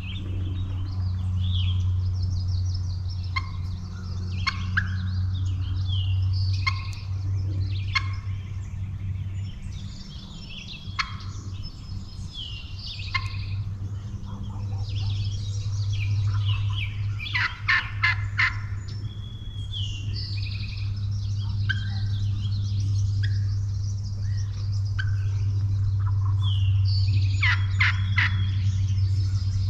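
Wild turkey gobbling, two rapid rattling gobbles about ten seconds apart in the second half, with small songbirds chirping throughout and a low steady hum underneath.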